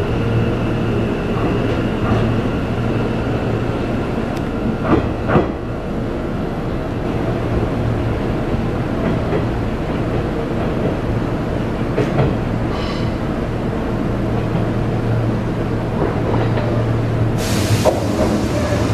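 Kintetsu electric train moving through the station with a steady low hum. A few sharp clicks and knocks come around five seconds and again around twelve seconds in, and a brief hiss starts near the end.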